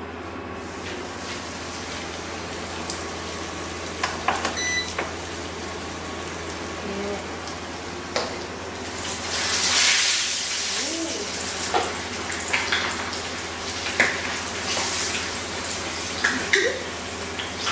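Kitchen sounds: water running briefly into a sink, louder for a couple of seconds around the middle, with scattered clinks and knocks of utensils and a short beep early on.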